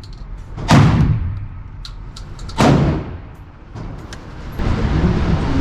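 Two shots from a Radikal NK-1 semi-automatic 12-gauge bullpup shotgun firing solid slugs, each a sharp bang that rings out in echo, under a second in and about two seconds later. A steady rushing noise starts near the end.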